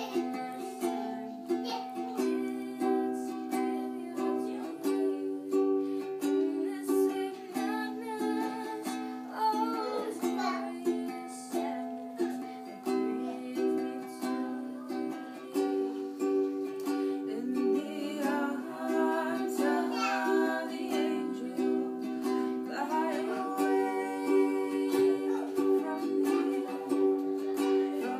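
Ukulele strummed steadily in chords, the chord changing every two to three seconds.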